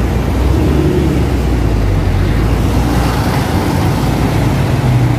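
Steady low rumble of vehicle engine and road noise.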